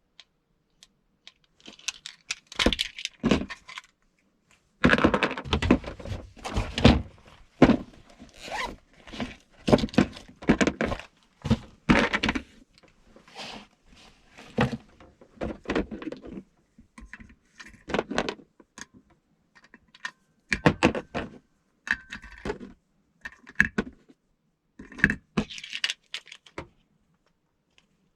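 Irregular knocks, clatters and scrapes of objects being handled and set down, beginning about two seconds in, with short pauses between bursts.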